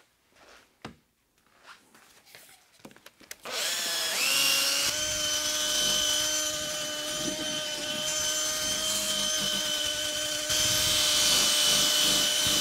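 Cordless drill spinning a foam polishing pad against a plastic headlight lens to buff it. After a few faint handling clicks, it winds up about three and a half seconds in and settles into a steady whine, a little louder near the end.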